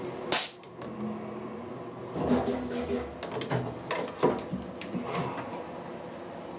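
Hands working at a Harrison metal lathe: a sharp clack about half a second in, then scattered light clicks, knocks and rubbing of metal parts.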